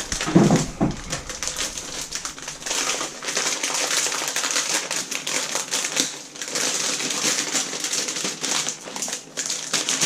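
Packaging rustling and crinkling, with many small clicks and scrapes, as a laptop is unwrapped and lifted out of its box.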